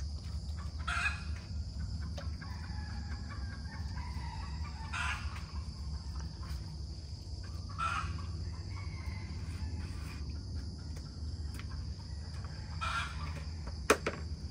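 Chickens clucking and calling in short bursts every few seconds, over a steady high-pitched hum and a low background hum.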